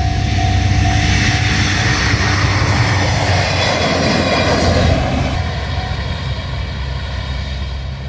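JR Shikoku KiHa 54 diesel railcar passing close by: its diesel engine and wheels grow louder to a peak about four to five seconds in, then fade as it moves away. A level-crossing warning bell is ringing at the start.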